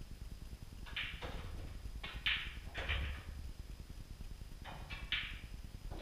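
Pool balls clicking: a run of sharp clicks from cue tip on cue ball and balls striking each other, the loudest about two seconds in and more near the end.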